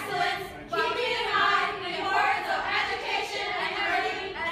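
A group of young women singing together in unison, with held notes and a short pause about a second in.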